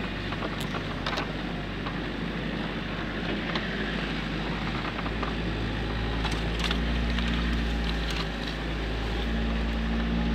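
Toyota Land Cruiser LJ73's four-cylinder diesel engine running at low speed while driving a rough dirt track, heard from inside the cab, growing louder about halfway through. Scattered knocks and rattles sound over the steady engine note.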